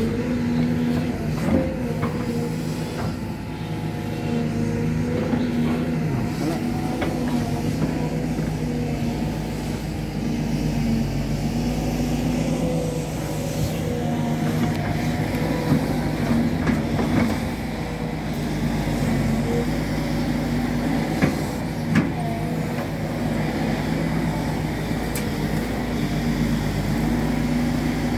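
Sany SY200C hydraulic excavator's diesel engine running steadily under working load while the bucket digs into soil and rock, with a few sharp knocks scattered through.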